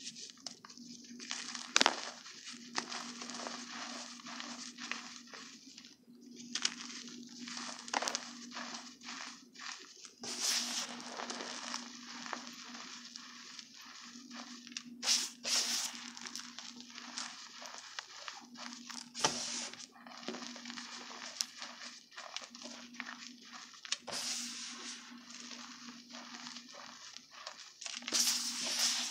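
Hands squeezing and crumbling a mound of cornstarch and baby powder, giving an irregular dry crunching and crackling, with louder crunches about two seconds in, around the middle and near the end. A low hum comes and goes underneath.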